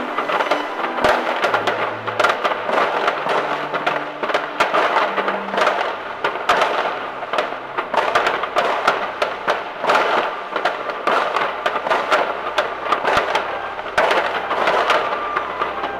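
Many fireworks going off at once: a dense, continuous crackling and popping, with sharper single bangs now and then.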